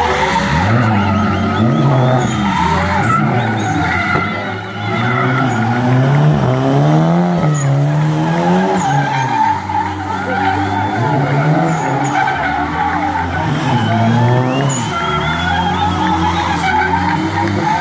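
Drift cars sliding on tarmac: engines revving hard in repeated rising and falling swells, with tyres screeching as the cars hold the slide under power.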